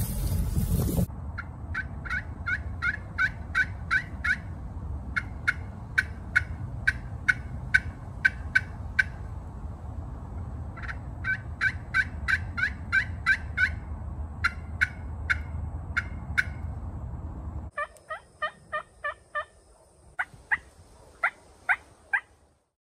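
After a second of wind noise, turkey yelping: runs of short, sharp notes at about three a second, each run lasting several seconds, over a low rumble of wind. Near the end the rumble drops away and the yelps come lower and sliding.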